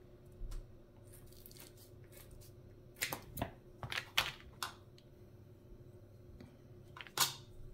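A thermal pad being cut with scissors and its plastic protective film peeled off: a few short, scattered rips and clicks, the loudest in a cluster past the middle and one more near the end.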